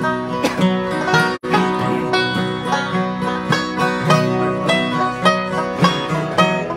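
Bluegrass instrumental: a banjo picking quick, even runs over a strummed acoustic guitar. The sound cuts out for a split second about a second and a half in.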